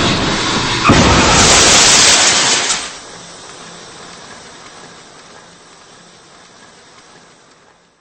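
A sudden loud rush of noise about a second in that holds for about two seconds, then drops and fades away as a long hiss.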